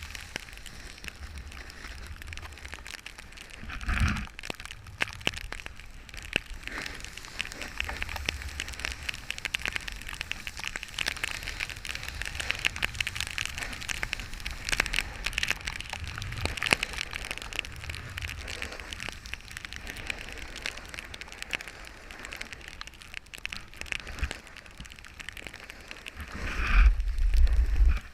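Snowboard sliding and scraping over snow, heard through a GoPro Hero3's waterproof housing: a continuous crackling scrape, with low wind rumble on the microphone that swells briefly about four seconds in and is loudest near the end.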